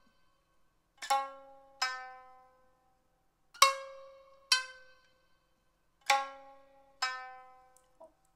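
Shamisen struck with a bachi plectrum in a slow, sparse passage: three pairs of sharp plucked notes about two and a half seconds apart, each note ringing and fading out before a short silence.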